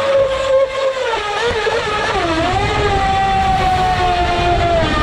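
Radio-controlled speedboat's motor whining as it runs on the water, with a low rush of water under the hull. The whine holds steady, wavers and dips about a second in as the throttle changes, then settles and slowly falls.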